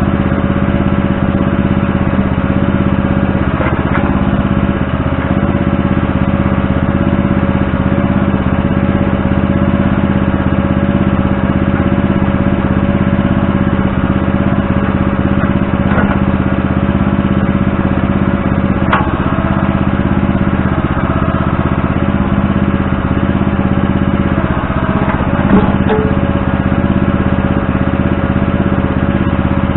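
Backhoe engine running steadily, with a few brief knocks.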